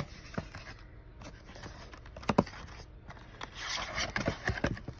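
Cardboard trading-card box being pulled open by hand: a couple of sharp clicks, then the flaps scraping and rustling against each other as they are folded open over the last second and a half.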